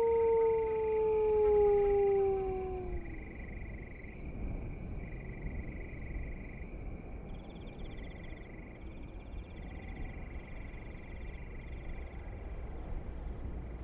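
A man howling through cupped hands in imitation of a wolf: one long steady call that sags in pitch and ends about three seconds in. Then only faint rhythmic high chirping, about four pulses a second, turning into faster trills.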